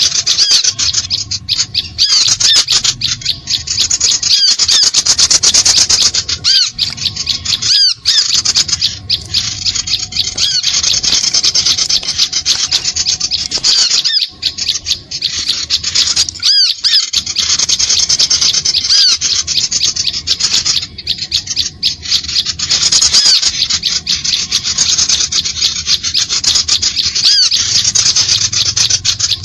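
Continuous rapid, harsh, high-pitched chattering and squeaky calls of small birds, a bird-lure recording used to draw small birds in.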